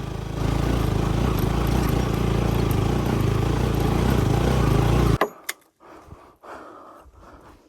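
Motorcycle engine running steadily for about five seconds, then cut off abruptly, leaving only a few faint clicks and knocks.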